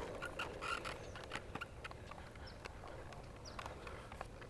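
Faint outdoor ambience with scattered light clicks and taps, and three short high chirps in the second half.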